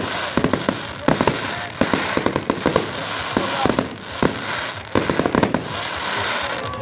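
Fireworks display: a rapid string of sharp bangs from bursting shells and cake shots, several a second, over a continuous crackling hiss.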